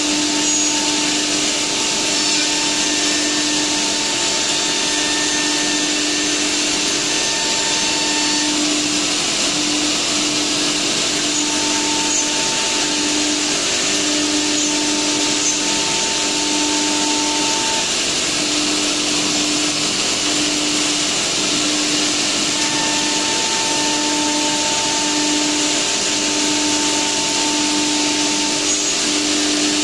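Ruinuo CNC wood router running steadily, with a loud even rush of air like a vacuum and a low hum that pulses on and off about once a second, plus a higher tone that comes and goes.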